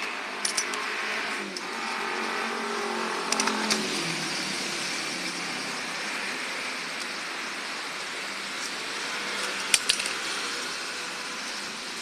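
Steady road-traffic noise with a vehicle engine passing in the first few seconds, its pitch falling away. Short sharp clicks sound about half a second in, around three and a half seconds in, and near ten seconds in.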